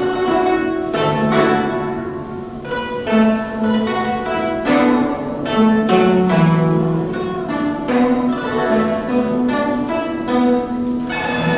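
Guzheng (Chinese zither) played at a lively pace: quick runs of plucked notes, each ringing on, over sustained lower notes.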